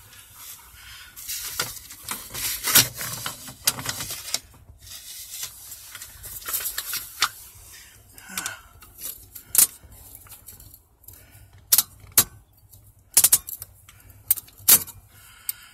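Scattered clicks, taps and light metallic clinks of small steering-column parts being handled and fitted by hand, coming at irregular intervals.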